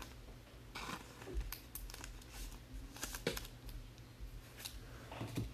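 Faint rustling and scattered light clicks of trading cards and their packaging being handled and flipped through, in a few short bursts.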